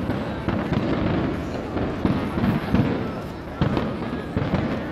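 Aerial fireworks bursting: several sharp bangs and crackles at uneven intervals, roughly one every half second to a second.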